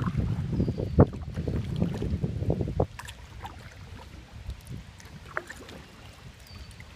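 Wind buffeting the microphone and small waves lapping against a plastic Pelican kayak hull, with a sharp knock about a second in. The wind rumble drops away about three seconds in, leaving quiet lapping and faint clicks.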